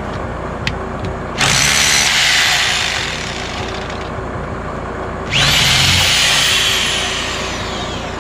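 DEWALT D25263K SDS hammer drill run in two short bursts, about a second and a half in and again about five seconds in. Each burst starts suddenly, and the motor whine falls in pitch as it spins down after the trigger is released.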